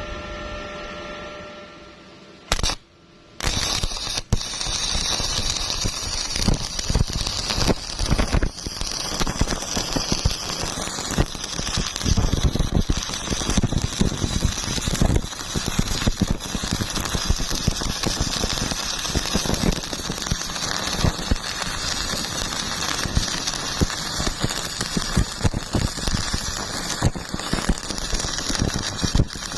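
Electric welding arc crackling steadily, starting about three seconds in after a brief dropout.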